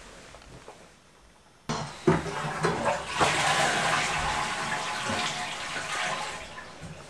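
Toilet flushing: a sudden rush of water about two seconds in, loudest in the middle and tapering off near the end.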